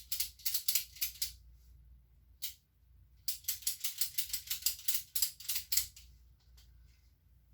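Ratchet strap being cranked, its ratchet clicking rapidly in two runs with a single click between, as the strap is tightened around the mower tire.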